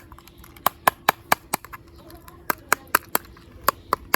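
Rapid sharp clicks or taps in runs of four or five, about four to five a second, with short pauses between the runs, over a faint steady hum.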